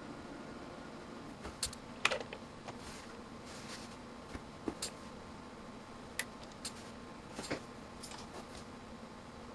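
Irregular sharp clicks from turning the rotary range selector of a BK Precision 2703C multimeter and handling its test-lead plugs, the loudest about two seconds in, over a low steady hum.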